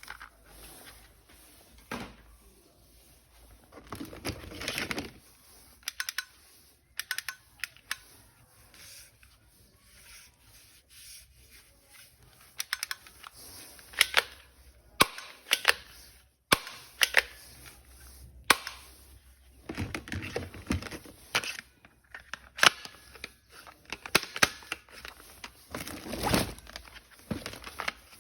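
Plastic toy weapon parts and packaging being handled and unpacked: scattered sharp clicks and snaps mixed with short bursts of rustling, busier in the second half.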